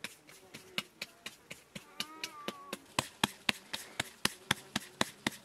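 Hands slapping a ball of bread dough back and forth between the palms to shape it, in a quick run of sharp slaps, about four a second.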